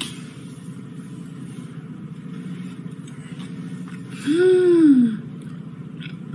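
A woman's single drawn-out closed-mouth "mmm" while chewing a bite of strawberry mochi, its pitch rising then falling, about four seconds in. A steady low background hum runs underneath.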